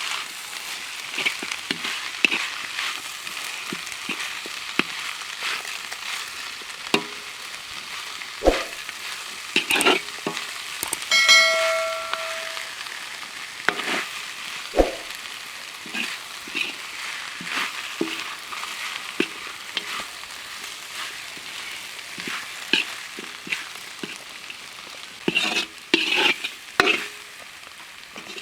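Food sizzling as it fries in a hot pan, with a metal spatula scraping and tapping against the pan many times. A brief metallic ring sounds about eleven seconds in.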